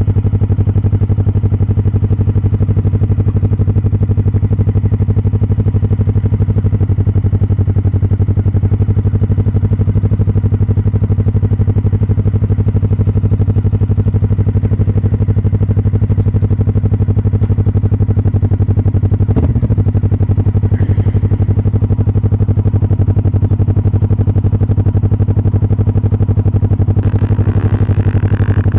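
Motorcycle engine running at a steady, unchanging speed. There is a short knock about two-thirds of the way through and a burst of hiss near the end.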